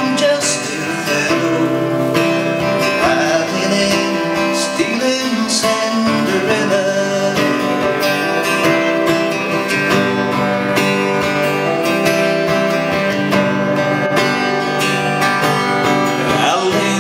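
Instrumental break of a ballad: a steel-string acoustic-electric guitar strummed through an amplifier, with held notes sounding steadily underneath.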